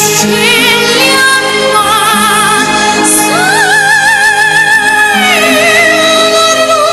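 A young girl singing in classical, operatic style over instrumental accompaniment, holding long notes with wide vibrato. About three seconds in her voice rises to a higher held note, then falls back near the five-second mark.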